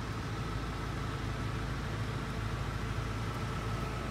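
A vehicle engine idling steadily: a low, even hum with a faint high whine above it.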